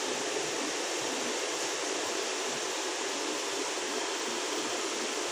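Steady whooshing hiss of running fans, even and unbroken.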